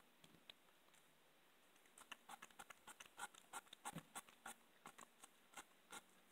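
A cat chewing a raw chicken wing, bone and all: a quick, irregular run of quiet crunching clicks starting about two seconds in.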